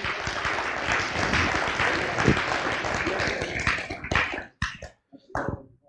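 Congregation applauding. The clapping dies away about four seconds in, leaving a few scattered last claps.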